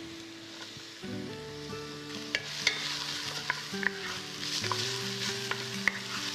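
Diced onion and garlic sizzling in clarified butter in a pot, stirred with a wooden spoon that scrapes and knocks against the pan now and then. The sizzle grows louder about two and a half seconds in. Soft background music plays underneath.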